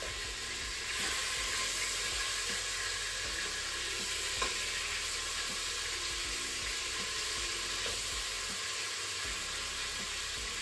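Chicken thighs sizzling as they sear in hot oil in a multi-cooker pot on sauté mode, a steady frying hiss that grows a little louder about a second in. Light clicks of metal tongs turning the pieces, one sharper click midway.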